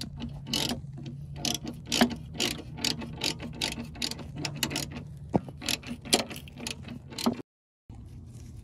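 Hand ratchet wrench clicking in quick, uneven runs while working the nut of a rear sway bar link, over a steady low hum. The sound breaks off abruptly for a moment near the end.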